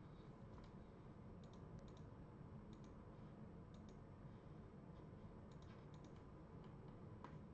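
Near silence: room tone with faint, light clicks coming in small scattered clusters, a few at a time.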